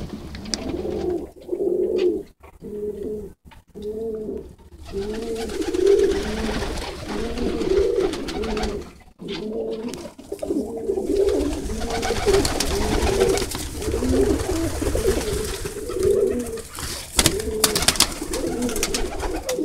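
Several tippler pigeons cooing in a loft, their low calls repeating and overlapping without a break. A few sharp clicks come near the end.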